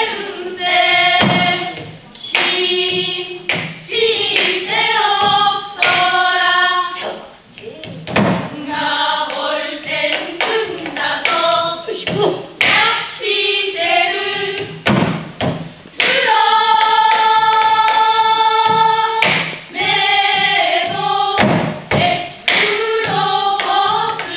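A women's group singing a Korean folk song together in unison, accompanied by sharp strokes on a Korean drum. About 16 seconds in they hold one long note for about three seconds.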